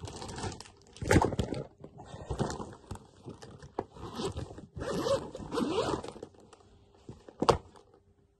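A clear plastic zip pouch being handled and rummaged through: the plastic crinkles, the zipper rasps and the things inside scrape together. There is a sharp knock about a second in and another near the end.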